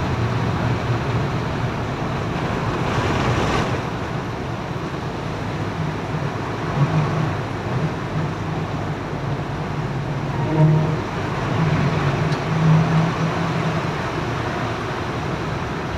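Bus engine running in the cabin as it drives through torrential rain, its low drone swelling and easing, over a steady wash of rain and tyre spray on the wet road.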